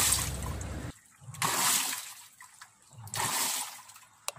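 Washing machine agitating its wash water, the motor turning the load forward then in reverse so the water swishes in repeated surges about every one and a half to two seconds, with the motor hum cutting off about a second in. Forward and reverse rotation working normally after the main board was replaced.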